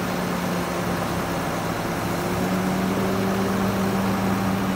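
Heavy diesel engine running steadily at a constant pitch, a low drone that neither revs up nor dies away.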